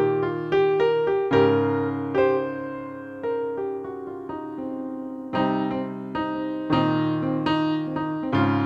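Background music: a solo electric piano playing gentle chords and melody notes, each note struck and left to fade.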